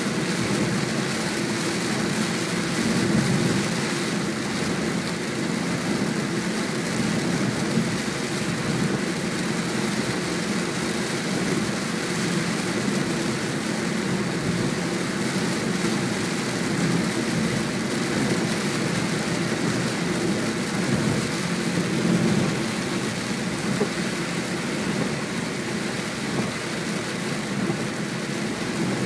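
Steady road and tyre noise inside a moving car's cabin on a wet road, with rain on the windshield.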